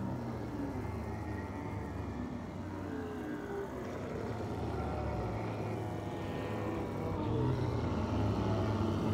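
A low, steady droning rumble that slowly grows louder, with faint wavering tones above it.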